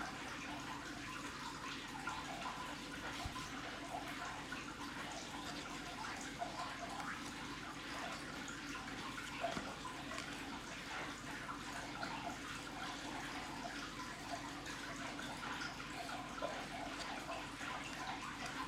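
Faint handling of trading cards: soft sliding and rustling with light scattered ticks, over a steady room hiss.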